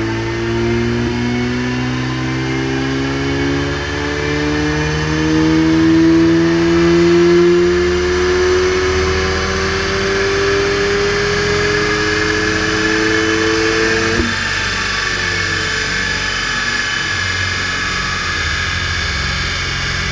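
Car engine and quad-tip exhaust under full load on a chassis dyno, its pitch climbing steadily for about fourteen seconds through a power run. Then the throttle shuts abruptly and the revs fall away while the dyno rollers keep spinning with a steady whirring rush.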